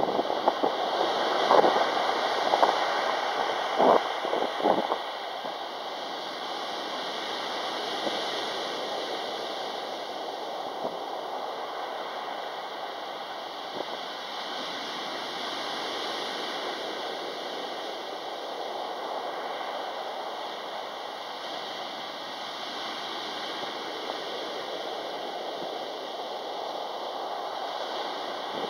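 Sea waves breaking and washing up a pebble beach in a steady rushing surf. It is louder, with several sharper crashes, in the first few seconds, then settles into an even wash.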